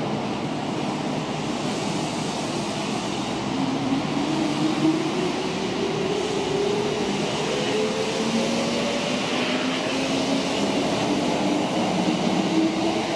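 Kintetsu electric commuter train pulling out of the station. Its motor whine climbs steadily in pitch from a few seconds in as it gathers speed, over a steady rumble of wheels on rail.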